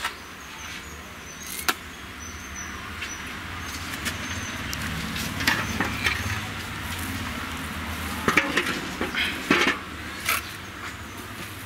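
Soil being shovelled and spread into a layer: irregular scrapes and knocks, busiest between about five and ten seconds in, over a low rumble that swells in the middle.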